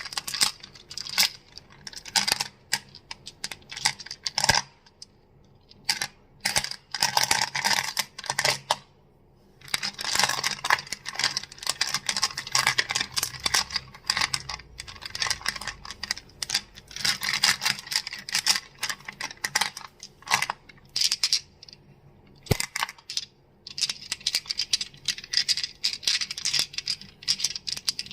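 Crystals clicking and clacking against each other in rapid, dense runs of sharp high clicks. The runs break off briefly a few times.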